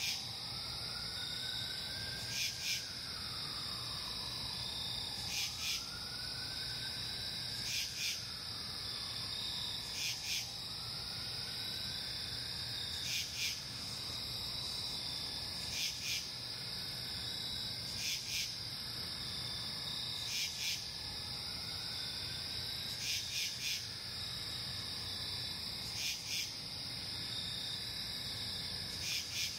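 Night insect chorus: a steady high-pitched trill, with a pair of short rasping chirps about every two and a half seconds. Under it, a faint tone rises and falls on the same cycle.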